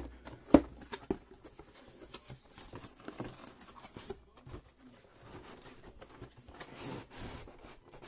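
Cardboard box being opened and handled: irregular knocks and taps of the cardboard, with the sharpest knock about half a second in, and rustling of the paper and pulp-cardboard inserts.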